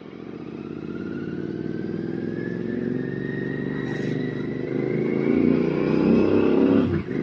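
Royal Enfield Continental GT 650 parallel-twin with an RRP aftermarket exhaust pulling under acceleration, its note rising steadily in pitch and getting louder, with a brief dip near the end.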